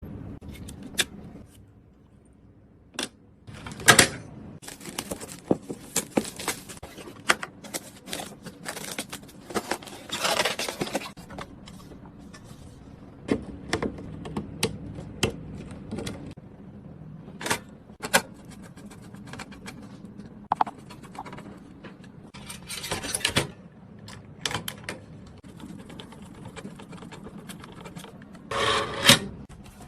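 Handling noises of a PC being assembled: scattered clicks, taps and knocks of parts and tools, with a few longer scraping, rustling stretches, the loudest near the end.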